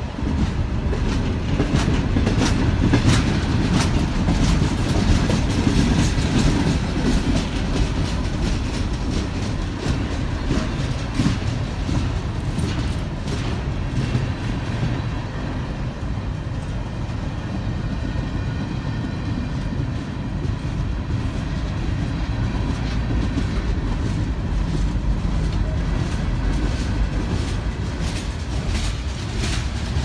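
Freight cars of a passing train rolling by, tank cars then open-top gondolas. The steel wheels click over rail joints above a steady low rumble.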